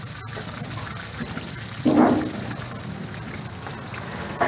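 Chicken pieces frying in hot oil in a large kadhai, a steady sizzle and bubbling. A brief louder sound comes about two seconds in.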